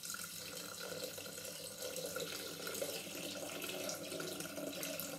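Water pouring in a steady stream from a glass jug into a Thermomix TM6 mixing bowl through the opening in its lid.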